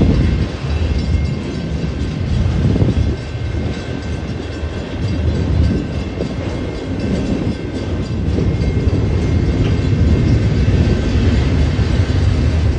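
Union Pacific autorack freight cars rolling past at close range: a steady, loud rumble and clatter of steel wheels on the rails, with faint thin high tones from the wheels above it.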